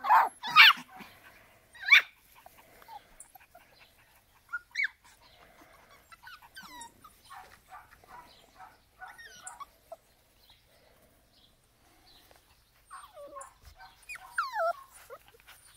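Schnauzer puppies yipping and whimpering in short, high-pitched cries. The loudest come in the first two seconds, and a cluster comes again near the end.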